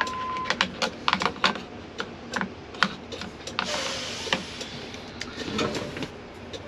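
Irregular clicks and taps of plastic dash parts and fasteners being handled as a truck's dash is taken apart, with a short rushing noise about four seconds in.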